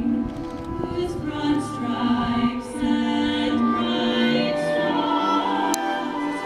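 Choir singing a slow song with long held notes.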